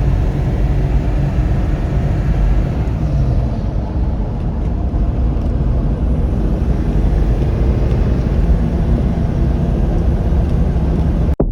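Ford 7.3L Power Stroke V8 turbo-diesel in a 2000 Excursion, driving under power with steady heavy engine and road rumble, on a test run to check its power now that the collapsed air filter blamed for the low power has been dealt with. The sound cuts off sharply just before the end.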